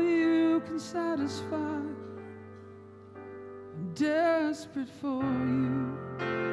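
A man singing a slow worship song over a band's sustained chords, holding long notes with vibrato.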